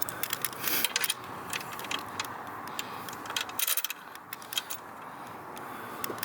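Scattered light metallic clicks and clinks from handling the seat-swivel hardware and bolts, irregular and without a rhythm.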